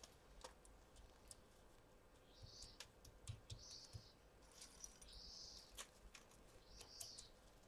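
Near silence with faint light clicks and a few brief soft rustles: pumpkin seeds being pressed by hand into the top of a soft cashew-and-almond cream cheese wheel on parchment paper.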